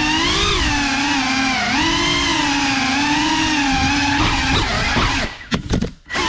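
Small FPV drone's brushless motors and propellers whining, the pitch rising and falling with the throttle. About five seconds in the motors drop out for about a second amid a few short knocks, then spin up again.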